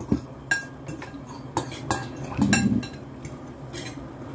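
Forks and spoons clinking and scraping against a glass serving dish and plates while eating: a string of short, sharp clinks, some with a brief glassy ring, busiest around the middle.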